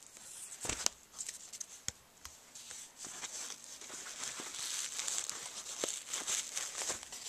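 Hook-and-loop (Velcro) patch being peeled from and pressed onto the loop panel of a cap, with a knock of handling about a second in. The ripping gets denser and louder from about three seconds in.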